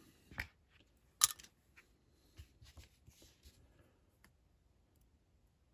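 Faint scattered clicks and ticks, with light rustling, from thin brass rod and a small pair of pliers being handled on a workbench; one sharper click about a second in.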